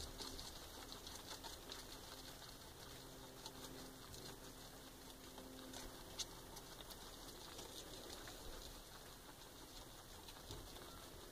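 Faint crunching of a guinea pig chewing leaves: a run of small irregular ticks and crackles, with some rustling of hay and fur as it is stroked.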